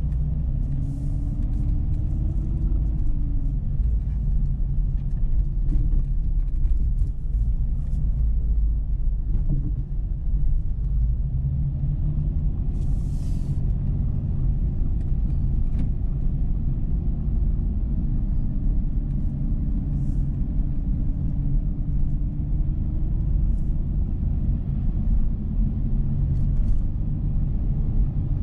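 Dodge Charger's 3.5-litre V6 engine and tyres rumbling steadily while driving. The engine note slowly rises and falls as the car speeds up and eases off. There are scattered light ticks and a short hiss about 13 seconds in.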